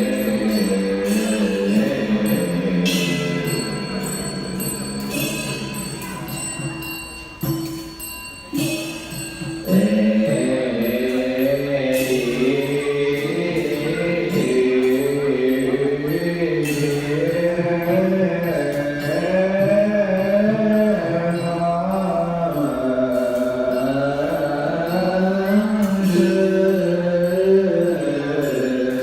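Background music of low sung voices in a slow chant, with occasional struck bell-like notes ringing on. It thins out briefly about a third of the way in, then the chanting returns fully.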